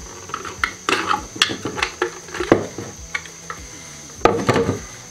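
Hard plastic clicks and knocks from a car indicator unit being worked apart with a screwdriver, with a cluster of rattling knocks near the end.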